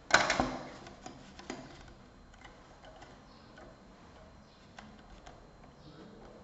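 A large clear plastic set square clattering down onto a paper drawing sheet: a quick cluster of sharp knocks just after the start, then a few light clicks and taps as it is slid into position.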